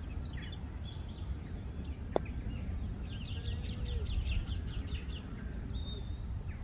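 Small birds chirping in a quick run of short notes about halfway through, over a steady low rumble, with one sharp click about two seconds in.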